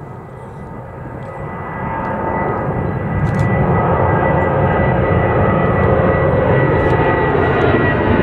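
Boeing 757 twin-engine jet climbing out directly overhead just after takeoff, landing gear still down. The engine noise swells over the first few seconds to a loud, steady rush with a steady high whine.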